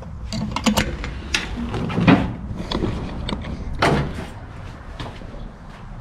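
Irregular knocks and clunks from a 1965 Mustang's brake pedal and linkage as it is pressed repeatedly to test newly bled disc brakes.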